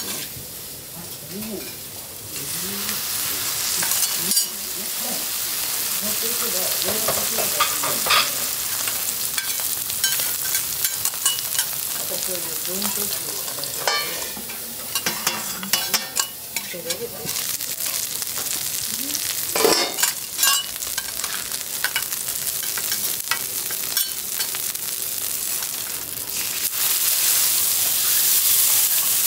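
Wagyu sirloin steak and garlic slices sizzling on a steel teppanyaki griddle, the hiss growing louder near the end. Sharp clicks and scrapes of a metal spatula and knife on the steel come and go, the loudest clink about twenty seconds in.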